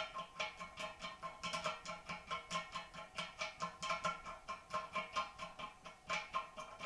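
Background music: a guitar playing a steady run of plucked notes.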